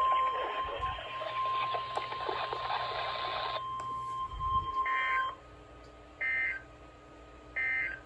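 NOAA Weather Radio weekly test heard through a weather radio receiver: the steady 1050 Hz warning alarm tone sounds over a hiss and cuts off about five seconds in. Then come three short warbling data bursts about 1.3 seconds apart, the SAME end-of-message tones that close the alert.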